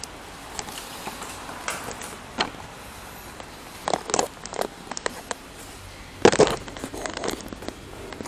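Handling noise close to the microphone: a few scattered sharp knocks and rattles, loudest in a cluster about six seconds in.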